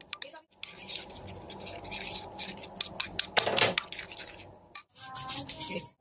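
Metal spoon stirring yogurt and green chutney together in a bowl: quick, uneven scraping and clinking strokes against the bowl, with a denser burst of scraping about three and a half seconds in.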